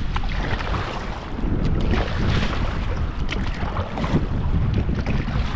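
Wind buffeting the microphone over sea water splashing and lapping around a kayak, with scattered short splashes.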